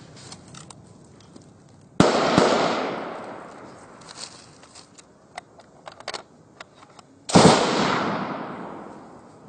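Gunfire in a firefight: two loud shots about five seconds apart, each with a long rolling echo that fades over nearly two seconds, and faint scattered cracks in between.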